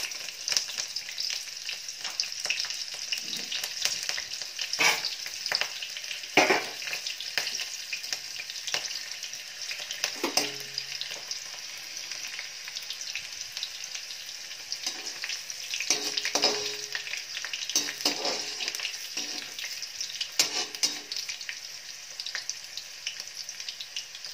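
Hot oil sizzling steadily in a steel kadhai as fenugreek and cumin seeds, garlic and green chillies fry for a tadka. A utensil knocks and clinks against the pan several times.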